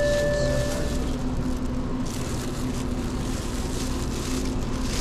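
Thin plastic bag crinkling in hand over a steady low hum, with a held electronic tone during the first second.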